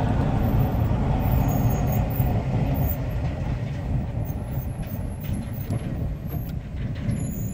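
Vehicle engine and tyres on an unpaved road, heard from inside the cabin: a steady low rumble that eases a little after about three seconds.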